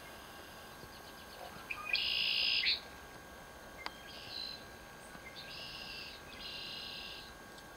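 Four short buzzy, trilled calls from marsh wildlife, each under a second long, the first and loudest about two seconds in.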